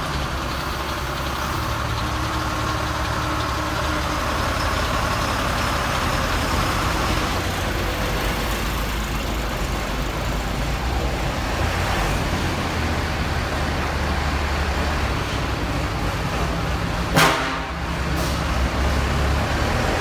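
Heavy diesel truck engine idling steadily. About three quarters of the way through comes a brief, sharp, loud burst of noise, and a fainter one follows a second later.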